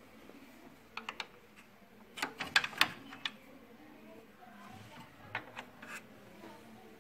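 Sharp clicks and knocks of HP LaserJet P3005 printer parts being handled during a gear-set replacement. Three quick clicks come about a second in, a louder cluster of several clicks follows two to three seconds in, and a few more come near the end.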